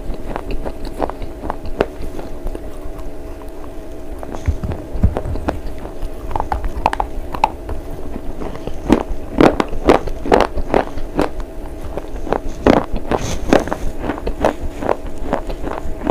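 A chalky white slate bar being bitten and chewed close to the microphone: a run of sharp, crisp crunches that come thickest in the second half, over a steady low hum.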